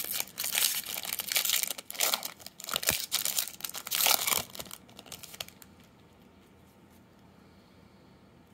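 Foil wrapper of a Topps 2021 Series 1 baseball card pack being torn open and crinkled by hand, in quick crackling bursts over the first five seconds or so.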